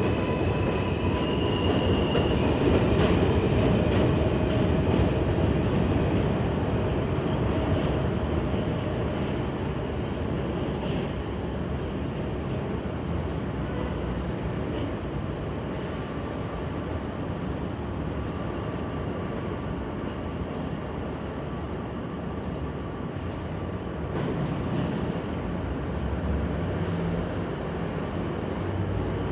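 New York City subway train running along the track through the station: a steady rumble, loudest a few seconds in and then easing, with a few thin wheel-squeal tones near the start.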